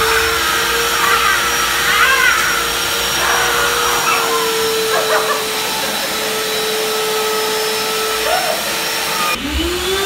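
Canister vacuum cleaner running with a steady whining hum and rushing air hiss through its hose. About nine seconds in the hum breaks off and climbs back up in pitch.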